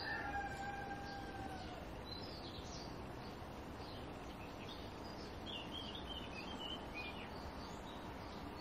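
Faint small birds chirping now and then over low outdoor background noise, with a faint steady tone in the first couple of seconds that fades out.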